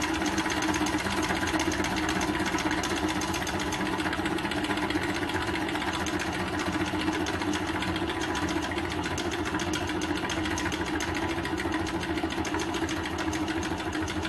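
Scratch-built gamma-type Stirling engine with a CPU-cooler heat sink running steadily on its methylated-spirits burner, a fast, even mechanical clatter from its pistons and linkage.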